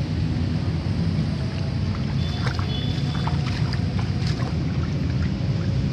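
Steady low rumble of wind buffeting a phone's microphone, with a few faint clicks about two to four seconds in, as the hand works in the wet mud.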